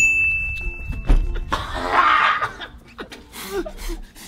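A man gagging on a live worm: a loud, rough retch about a second and a half in, followed by short laughs, over background music. A high steady tone rings for about a second and a half at the very start.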